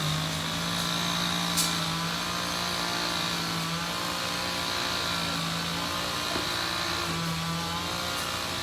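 An engine running at a steady pitch after revving up just before, with one sharp click about one and a half seconds in.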